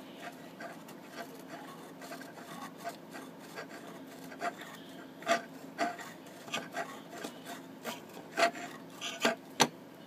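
Folded sandpaper rasping back and forth between the contacts of an old garage-door-opener magnetic relay, in short strokes about two a second that grow louder in the second half. It is cleaning the relay's switch contacts so they close reliably when the coil pulls in.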